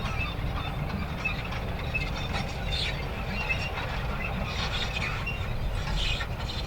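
Manure spreader running: a steady low rumble under constant irregular mechanical rattling and clicking.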